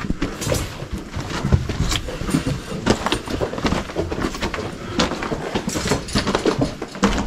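Footsteps over loose rock rubble and through shallow water in a mine tunnel: irregular crunching and splashing steps.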